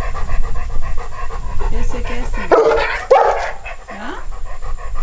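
A dog panting fast and evenly, about six breaths a second, with two short, louder calls about halfway through.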